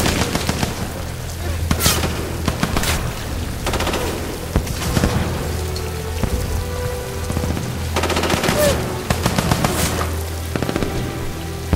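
Battle gunfire: repeated bursts of rapid machine-gun fire and scattered shots, over steady rain and a low held music drone.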